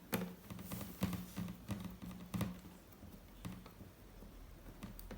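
Quick clicks and knocks of the HP ProBook 4520s laptop's plastic case and parts being handled during reassembly. They come close together for about two and a half seconds, then thin out to a few light ticks.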